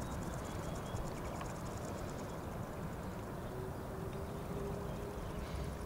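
Distant, steady rumble of an Airbus A330 airliner's jet engines as it rolls out along the runway just after touchdown.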